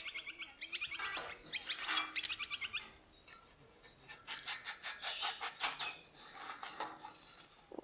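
Small birds chirping in quick trilled runs. Later come light scrapes and clicks of a metal spatula sliding against the steel stove and tray under the pizza.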